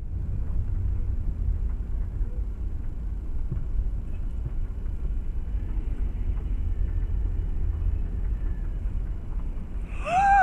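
Steady low rumble of a car driving on a road, as picked up by a dashcam inside the car. In the last half second a short squeal rises in pitch.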